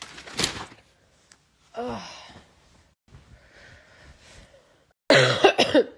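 A woman's heavy, breathy sighs and exhalations during an asthma flare-up. There is a breath at the start, a short hum about two seconds in, faint breathing, then a loud breathy burst near the end.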